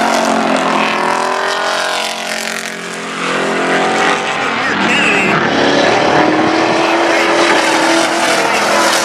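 Engines of pickup race trucks running hard on a dirt oval, one falling in pitch as it passes about a second in, then another rising in pitch as it accelerates through the second half.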